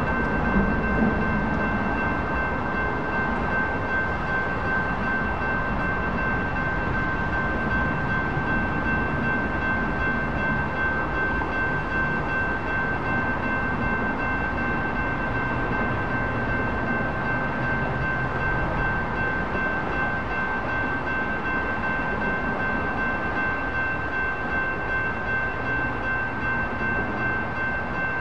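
A freight train's cars rolling steadily past at a grade crossing, a continuous rumble of wheels on rail, with the crossing's electronic warning bell ringing on as a steady high tone.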